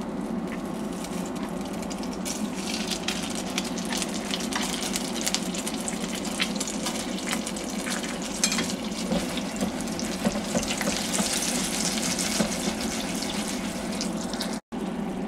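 Beurre noisette (browned butter) sizzling and crackling steadily in a pan as dollops of crème fraîche are spooned into it. The sizzle breaks off for an instant near the end.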